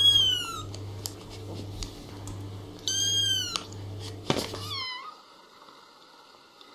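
Very young kitten mewing: three short, high-pitched mews, each falling in pitch. The first comes at the start, the next about three seconds in, and a shorter one just before the sound drops to a faint background.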